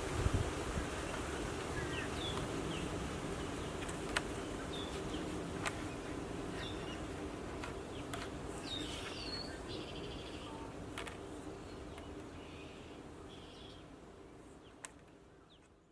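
Outdoor ambience: small birds chirping now and then over a steady low drone and a light wind hiss, with a few faint clicks. It fades away near the end.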